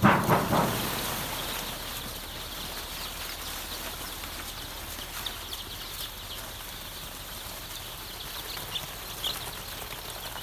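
Two-day-old BV 380 layer chicks peeping in a brooder: a soft steady chorus of high peeps, with a few louder single peeps in the second half. A brief loud rustle right at the start.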